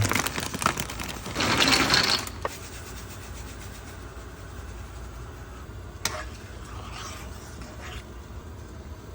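Kitchen cooking sounds: a loud rasping scrape about a second and a half in, a few sharp clicks, then a quieter steady low hum.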